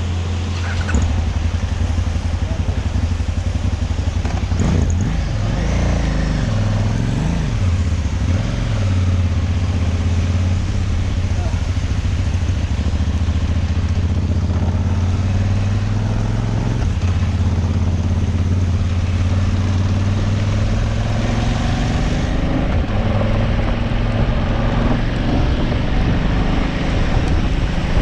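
Motorcycle engine running under way with wind and road noise. The engine pitch rises and falls between about 5 and 9 seconds in as the revs change, then holds steady.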